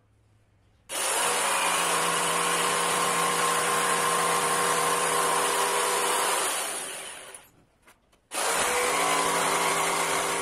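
Corded jigsaw running and cutting into a wooden board, a steady motor whine with the rasp of the blade. It starts about a second in, runs for about six seconds, stops briefly, then starts again and cuts on.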